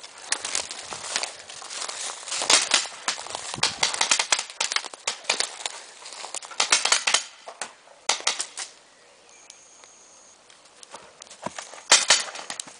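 Branches and foliage of dense evergreen shrubs crackling and rustling in quick irregular bursts as someone pushes through them, easing off about nine seconds in, with a louder sharp crack near the end.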